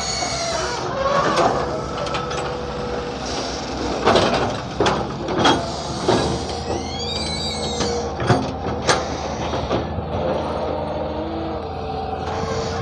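Hyundai 170 excavator's diesel engine running steadily, with several sharp metallic clanks and a brief high squeal about seven seconds in.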